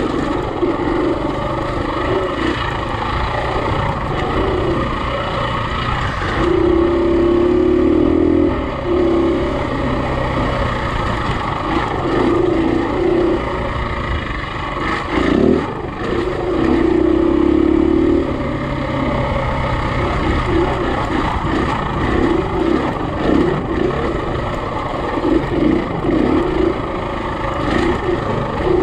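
Single-cylinder four-stroke enduro dirt bike engine running on trail, the throttle worked in short choppy bursts, with steadier held pulls about six seconds in and again about sixteen seconds in.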